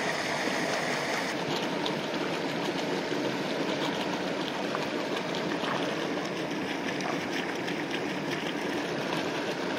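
Steady rush of running water at a trout pond, with a light patter of small splashes starting about a second and a half in.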